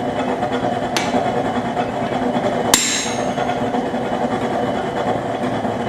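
A single hammer blow on steel at the anvil about three seconds in, ringing briefly, with a lighter tap about a second in. Under it the steady roar and hum of a running propane forge.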